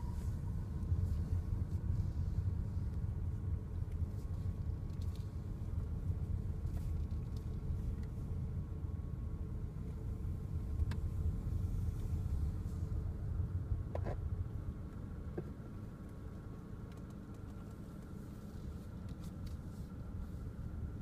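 Steady low rumble of a car driving slowly, heard from inside the cabin, easing slightly near the end, with a couple of faint clicks.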